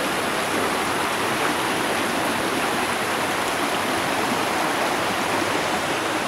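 Mountain stream running over rocks and gravel: a steady, even rush of water.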